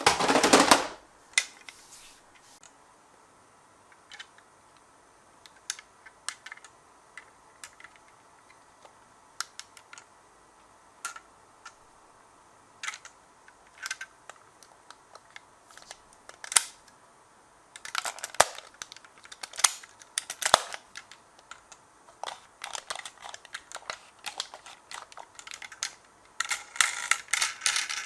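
Miniature toy cars clicking and clattering on a slope track: a loud rattle right at the start, then scattered light clicks, with denser bursts of clatter about eighteen seconds in and again near the end.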